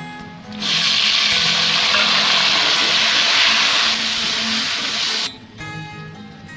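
Chopped tomatoes and green chillies sizzling loudly as they hit hot oil and fried onions in a cooking pot. The sizzle starts suddenly about half a second in and stops abruptly about five seconds in, over faint background music.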